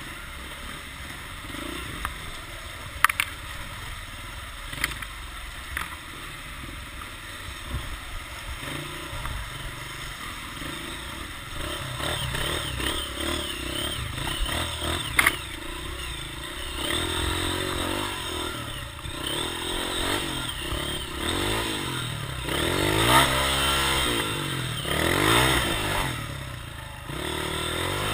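An engine running and revving, its pitch rising and falling over the second half, with a few sharp knocks and clatter in the first half.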